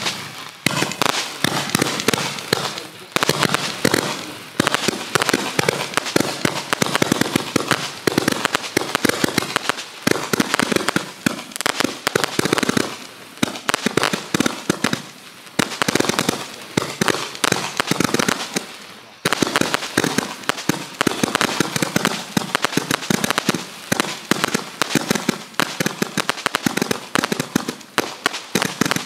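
Minigun Blaster 200-shot roman candle barrage firing in rapid succession: a dense, fast stream of shots, several per second, with a few short lulls.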